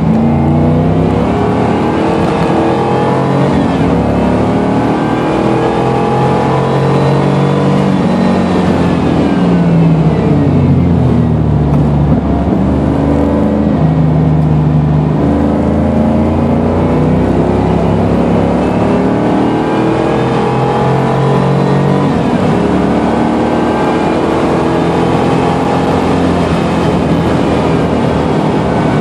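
1989 Pontiac Firebird Trans Am engine heard from inside the car while it is driven hard on a race circuit. The engine note climbs and falls back again and again as the car accelerates and slows for corners, loud throughout.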